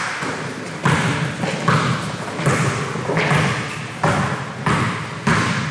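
Basketball being dribbled on a gym floor: seven bounces at a steady pace of a little more than one a second, each echoing briefly in the hall.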